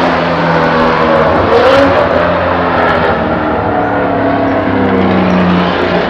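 V12 engine of the 1985 Bathurst-winning Jaguar XJS racing car running hard at speed. Its note falls and rises several times through the lap.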